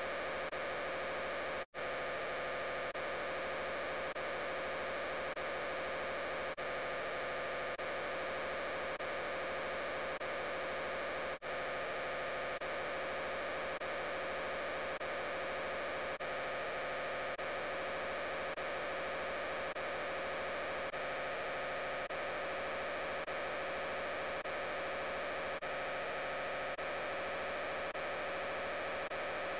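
Hundreds of overlaid copies of the 'I'm Peppa Pig' voice clip blurred into a dense, steady static-like hiss with a hum, the words no longer audible. It cuts out for an instant twice, about two seconds in and again about eleven seconds in.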